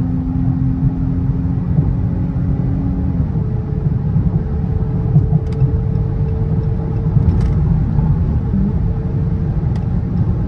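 Dodge Charger GT's V6 engine and tyre and road noise heard from inside the cabin at highway speed, as the car accelerates hard from about 107 to 121 mph. It makes a steady, loud low rumble.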